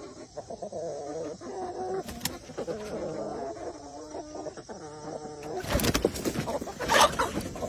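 Backyard chickens clucking and calling over one another in a string of short, bending calls. About six seconds in, a loud rustling, scuffling burst rises over the calls for a second or so.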